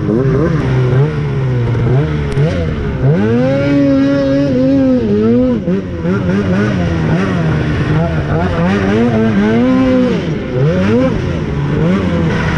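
Two-stroke snowmobile engine being ridden hard, revving up and falling back again and again as the throttle is worked.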